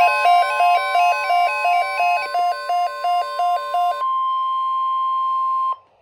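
NOAA weather radios sounding a Flood Watch alert: a steady high alert tone with alternating two-note alarm beeps over it, about three a second. The beeps stop about four seconds in, leaving the steady tone alone until it cuts off shortly before the end.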